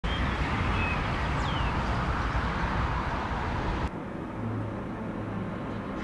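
Outdoor railway-station background: a steady rumble and hiss that cuts off suddenly about four seconds in. It is followed by a quieter, steady low hum.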